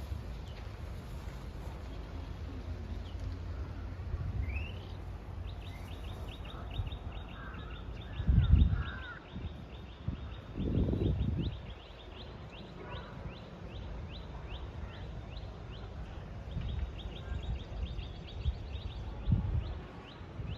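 Rapid, evenly repeated high chirps, about four a second, start about six seconds in over a steady low rumble. Two louder, short low rumbles come near the middle.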